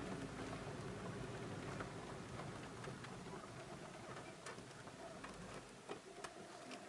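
Quiet car interior: a low engine and road rumble that fades out about six seconds in as the car slows, with scattered faint ticks and clicks.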